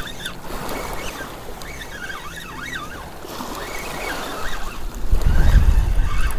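Small waves washing on a pebble shore, with wind on the microphone. From about five seconds in, gusts buffet the microphone with a loud low rumble.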